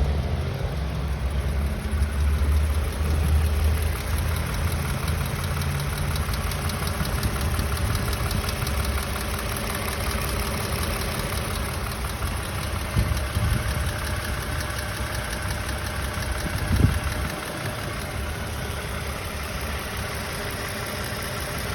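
Toyota 2GR-FE 3.5-litre V6 idling steadily at operating temperature, with a ticking, tapping noise from the engine that has grown louder over time and that mechanics have not been able to diagnose. A single brief knock stands out about three-quarters of the way through.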